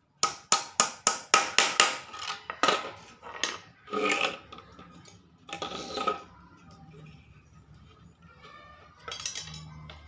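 A small hammer tapping on a wooden bird-cage frame: a quick run of about ten light strikes, some five a second, in the first two seconds. Then a few slower knocks and the clatter of wooden cage parts being handled.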